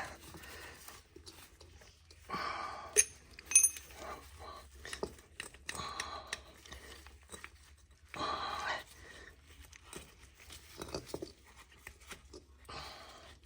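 Small metal parts of a tractor's hydraulic control valve clicking and clinking as they are worked loose by hand. There are a couple of sharp, ringing clicks about three seconds in and four short rushes of noise spread through the rest.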